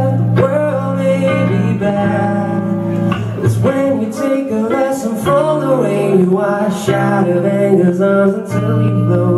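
A man's voice singing over a guitar played lap-style, flat across his knees, with long sustained low notes underneath and a melody line sliding between pitches above.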